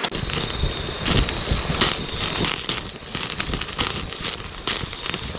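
Frying pan of meat being reheated over a wood fire: a dense, irregular crackling and sizzling.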